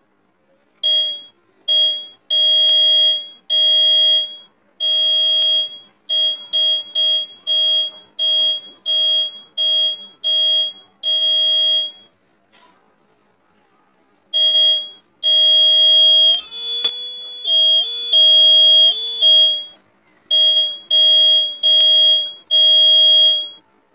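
Bike indicator buzzer, a round piezo type, sounding a shrill high-pitched beep each time its wires are touched to the power supply. The result is an irregular string of short and longer beeps, with a pause of about two seconds midway. The tone crackles and breaks up for a couple of seconds in the second half.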